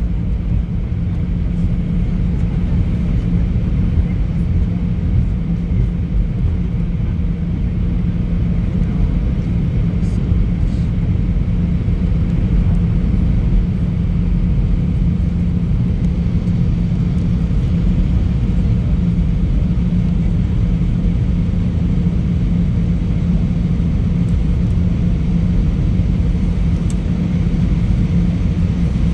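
Steady cabin noise of an Airbus A320 rolling along the runway after landing: a low rumble with a steady hum.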